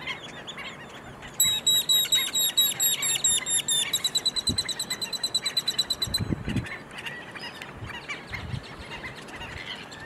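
Black-necked stilts calling. About a second and a half in comes a run of sharp, high yips, a few a second, which quickens into a rapid, even series and stops just after six seconds. Softer chatter from other birds runs underneath.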